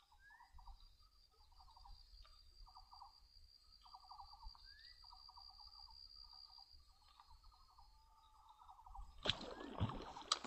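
Faint swamp ambience of insects: a steady high-pitched buzz under repeated short trills, with a couple of brief rising chirps. Louder noise starts about nine seconds in.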